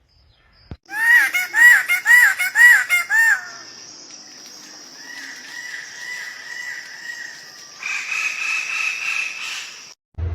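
Bird calling: five quick calls about half a second apart, each rising then falling, followed by a long, steady, high whistle that steps lower near the end and stops abruptly.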